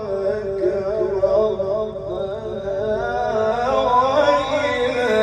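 An Egyptian qari reciting the Quran in the melodic mujawwad style into a microphone: one long drawn-out phrase, ornamented with wavering turns, that climbs higher about four seconds in.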